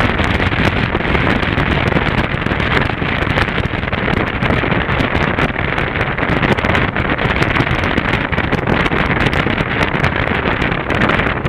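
Steady wind rush buffeting the microphone of a rider-mounted camera on a moving BMW R 1200 GS Adventure motorcycle, with the motorcycle's engine running underneath.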